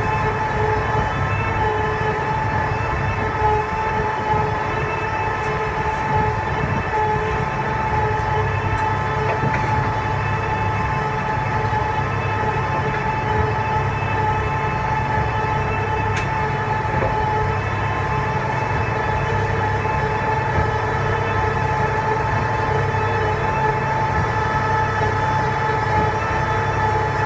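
Hi-Spec vertical feed mixer wagon running, its cone-topped auger turning and churning chopped forage through the tub in the last part of a mix. Steady machine drone with a constant high whine over a low hum.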